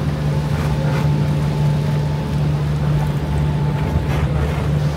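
Excursion boat's engine running with a steady low hum, over a steady rushing noise.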